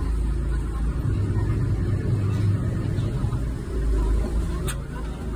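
River ferry's engine running steadily with a deep low sound while the boat is held at the pier, with one sharp click near the end.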